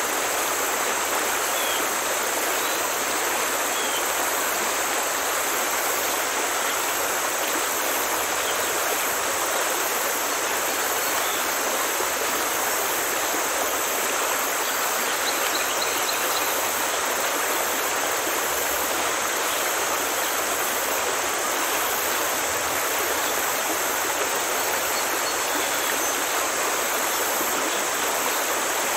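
Steady rush of running water, even and unchanging throughout.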